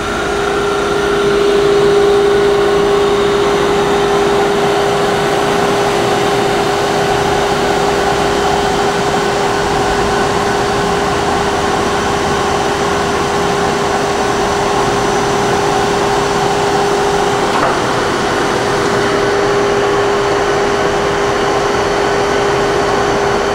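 SMTW H163 plain cylindrical grinder running smoothly: a steady whirring hum with one steady tone throughout.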